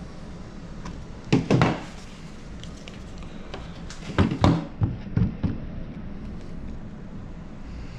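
A few sharp knocks and thumps in two groups, about a second in and again around four to five seconds in, over a steady low hum.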